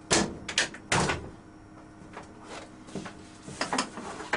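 Cab door of a class 140 (E 40) electric locomotive being opened and someone climbing into the cab: a run of sharp clunks and knocks, the loudest in the first second and lighter ones after, over a faint steady hum.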